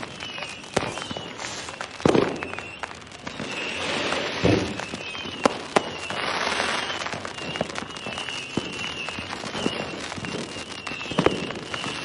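Fireworks going off: a handful of sharp bangs spread through, with a denser stretch of crackling in the middle. A thin wavering high tone runs underneath much of it.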